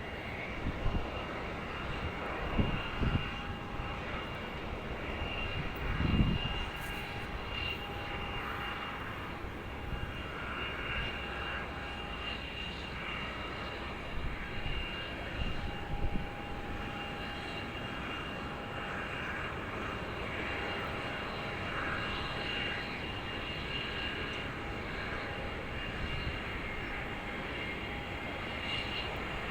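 Jet airliner engines running steadily on landing approach, with a steady high whine over a wide rushing noise. A few low thumps come in the first several seconds.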